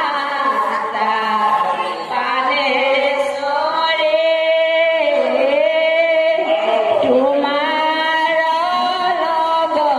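Bhaona chant-singing: a voice holding long notes that waver and slide between pitches, sung without pause.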